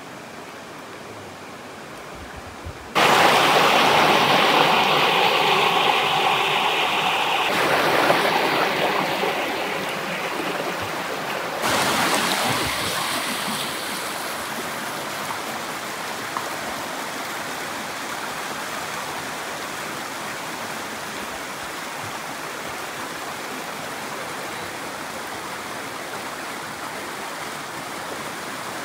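Mountain stream rushing and splashing over rocks in small cascades. It comes in loud and sudden about three seconds in, eases off after about twelve seconds, and settles into a steady rush.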